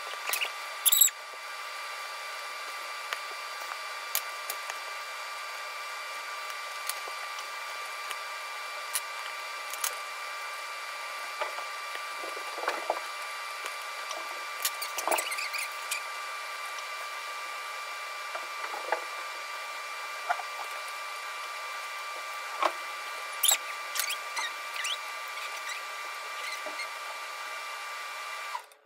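Small clicks, taps and scrapes from a screwdriver and hands working on a mini RC crawler chassis, with two louder clacks, one about a second in and one near the end. Under them runs a steady hiss with a constant high-pitched hum.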